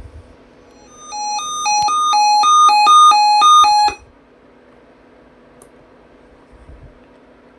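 A weather-radio receiver's alarm sounding an incoming alert: a buzzy beep alternating between two pitches, low-high, for about three seconds, then cutting off to a steady radio hiss.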